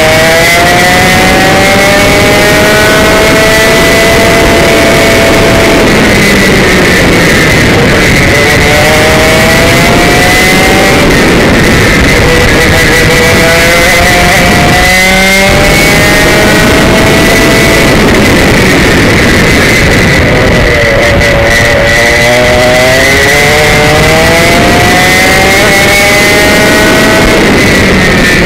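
Komet K77 100cc two-stroke kart engine, heard from the driver's seat at full race pace: its buzzing note climbs steadily for several seconds as the kart accelerates, then falls away as it slows for a corner, several times over.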